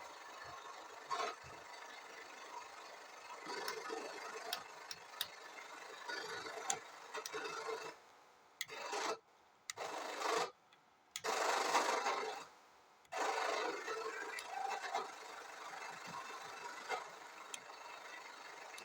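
Faulty Panasonic audio unit giving out a rough, crackling hiss with scattered clicks. Around the middle it cuts out abruptly to near silence three times. This is the sound fault itself.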